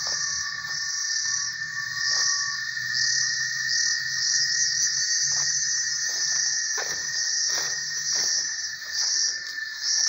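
Forest insects calling: a loud, shrill chorus that swells and fades roughly once a second over a steady high whine. Footsteps rustle and crunch through leaf litter several times in the second half.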